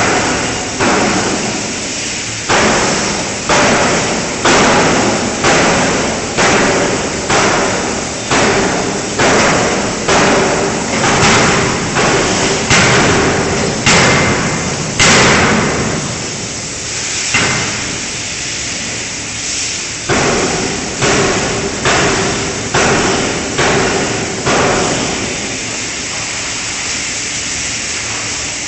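5-ton fully hydraulic closed-die forging hammer striking a connecting-rod forging in a steady run of heavy blows, about one a second. The blows stop about halfway through, a second shorter run follows, and the last few seconds are a steady machine noise, with a steady hum underneath throughout.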